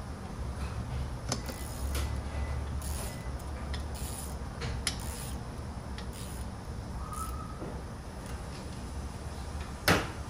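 Scattered light clicks and taps of hand tools and parts being handled during brake work, with one sharp click near the end, over a low steady hum.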